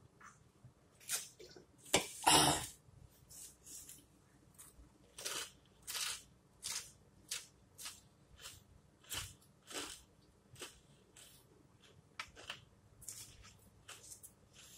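Close-up mouth sounds of chewing a crunchy taco of potato chips wrapped in a tortilla, with short crisp crunches about every two-thirds of a second. One louder thump comes about two seconds in.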